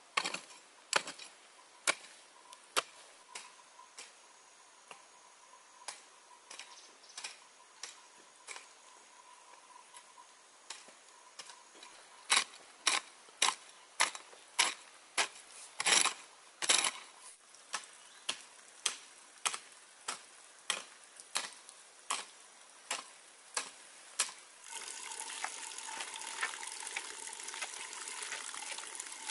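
Repeated chopping blows from a hand tool: scattered strikes at first, then a steady run of about two strikes a second. Near the end the strikes stop and a steady sound of running water begins.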